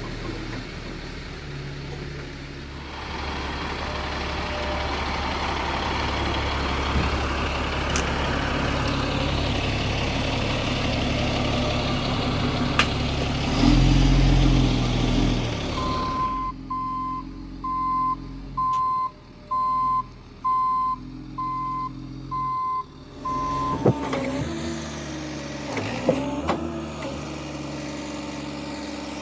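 Military wrecker's diesel engine running under load while towing a crane, then a reversing alarm beeping steadily about once a second for several seconds, followed by a few sharp knocks.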